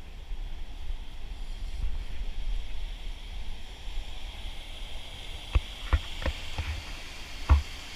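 Wind rumbling on the microphone over rushing water from a creek meeting the surf, with a handful of sharp knocks in the second half, the loudest near the end.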